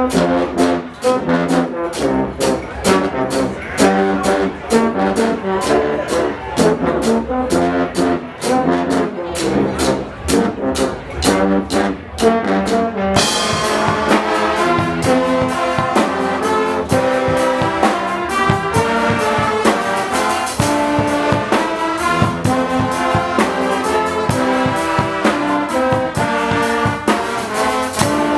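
Guggenmusik carnival band playing: trombones and trumpets blaring a tune over a steady drumbeat. About halfway through the sound changes abruptly, becoming fuller and brighter.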